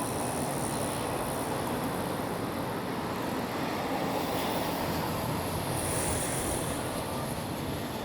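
Train running past with a steady rumble and rush of running noise: an EF65 electric locomotive hauling a delivery transfer of new Seibu 40000-series cars. A high hiss briefly swells about six seconds in.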